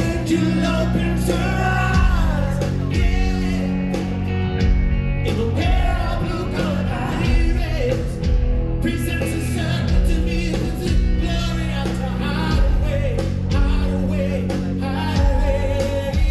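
Rock band playing live, with a male lead singer singing into a handheld microphone over the band.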